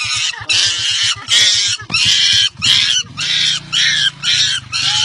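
A young monkey screaming: about eight harsh, shrill shrieks in quick succession, with a motorcycle engine idling underneath.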